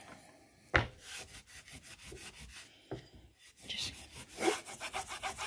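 A steel pricking iron rubbing and scraping against a leather strop, with a sharp knock a little under a second in and a busier run of rasping strokes near the end.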